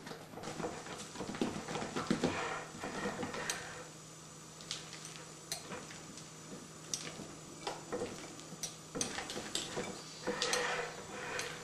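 Silicone spatula beating thick urad dal batter in a glass bowl, with irregular scrapes and clicks against the glass, busier for the first few seconds and then sparser taps. The batter is being whipped to beat air in and make the vadas lighter.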